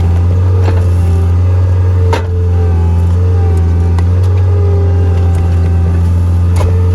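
Skid steer engine running steadily, with a few sharp knocks, the loudest about two seconds in.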